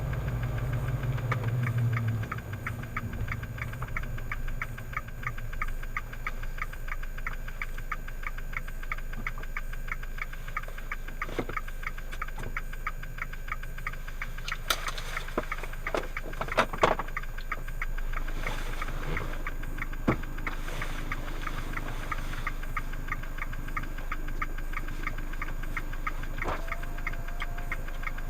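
Fiat 500 Abarth's 1.4 turbo four-cylinder engine idling with a steady, rapid ticking that the owner calls an odd sound not tied to rpm, speed or gear; he suspects the ECU was going through an adaptation phase. A few louder clicks stand out midway.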